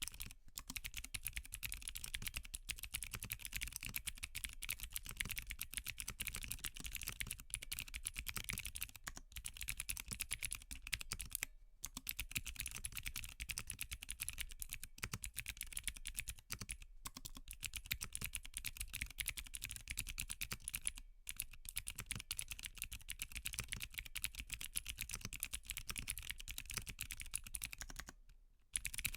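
Fast, continuous typing on a Qwertykeys Neo80 mechanical keyboard with clicky Cherry MX2A Blue switches in an aluminium plate without foam: a dense stream of sharp key clicks. It stops briefly a few times, with a longer pause near the end.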